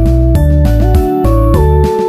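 Instrumental background music: a keyboard tune with notes that slide from one pitch to the next, over a bass line that changes note about twice a second.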